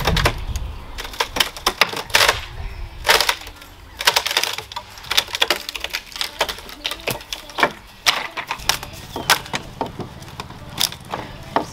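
Wooden railing and boards of an old, rotting playset being wrenched apart by hand: an irregular run of sharp knocks, cracks and creaks, some coming in quick clusters.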